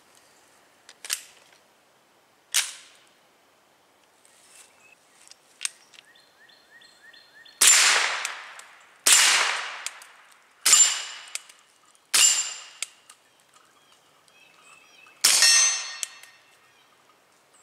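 CZ Scorpion 9mm carbine fitted with a Rugged Obsidian 45 suppressor firing five suppressed shots, the first four about a second and a half apart and the last after a longer pause, with steel targets ringing from the hits. The first two rounds are 115-grain ball at over 1,200 ft/s and the next are heavier, slower 150-grain rounds, which the shooter finds a lot more quiet. Two sharp metallic clicks come early, as the carbine is loaded.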